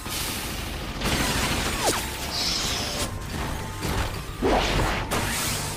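Anime battle sound effects of crashes and whooshes during a Titan fight, mixed with background music, with sweeping swishes about two seconds in and again near the end.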